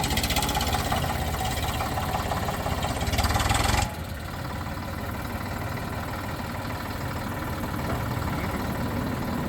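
Eicher 485 tractor's three-cylinder diesel engine running with a fast, even knocking beat, loud for about four seconds, then dropping suddenly to a quieter, steady idle.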